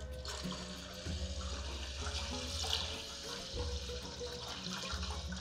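Water poured in a steady stream from a jug into a pot of soaked rice, splashing and trickling as the pot fills.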